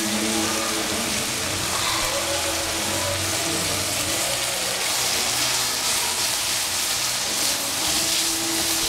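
Shredded cabbage sizzling steadily in a hot stainless steel saucepan as it is stir-fried.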